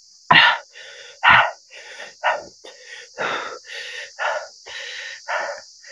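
A person breathing hard and fast through the mouth, a run of short hissing breaths, the two loudest in the first second and a half: the reaction to the burn of very spicy food. A steady high insect trill runs underneath.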